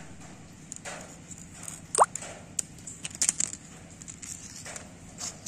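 Scissors, a ruler and a length of rubber hose being handled on a concrete floor: scattered light clicks and taps, with a short rising squeak about two seconds in.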